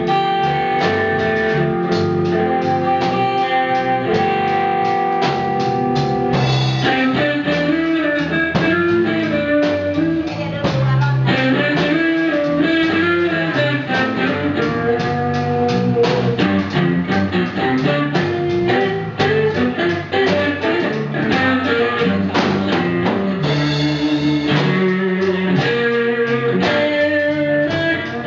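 Music track with guitar over a steady beat, played continuously.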